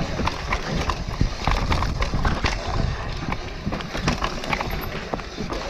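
Mountain bike clattering down a rough trail: rapid irregular knocks and rattles from the bike over a steady low rumble of tyres and air.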